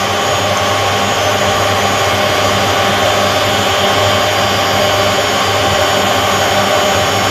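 Hotpoint First Edition WMA 9 washing machine running on its replacement motor: a steady, unbroken motor hum with a higher whine over it as the drum turns, on a test run of the new motor.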